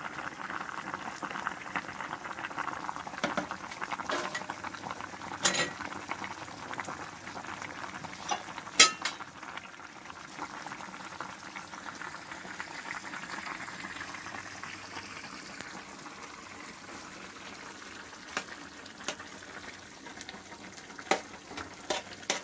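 Seafood tomato sauce simmering and bubbling in a pan, with a few sharp clinks of a spoon against the pan, the loudest about nine seconds in.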